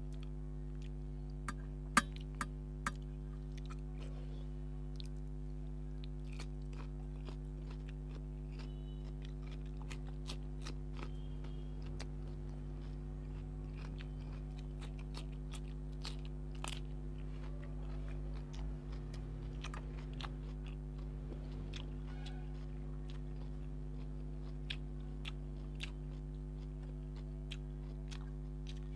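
Close-miked chewing and wet mouth clicks of a man eating rice and curry by hand, with a few sharper clicks about two seconds in, over a steady low electrical hum.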